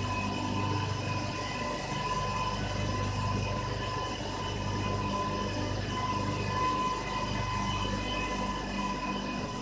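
Steam turbine-generator sets of a thermal power station running: a steady low electrical hum with a constant high-pitched whine over the machinery noise.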